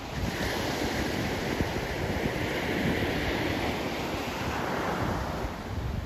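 Sea surf washing onto the beach, with wind rumbling on the microphone.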